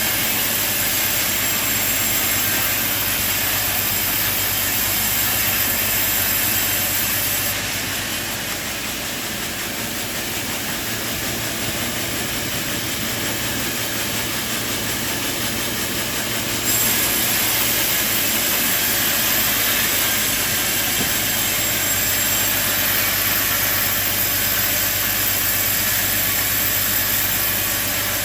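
Sawmill machinery running: a loud, steady noise with a low hum under it. It drops abruptly about seven seconds in and comes back louder at about seventeen seconds.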